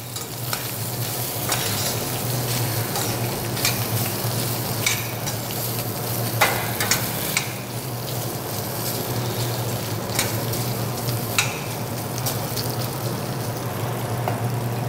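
Diced bacon sizzling in a stainless steel saucepan as it starts to cook, still giving off its water, while a metal spoon stirs it, clinking and scraping against the pan now and then.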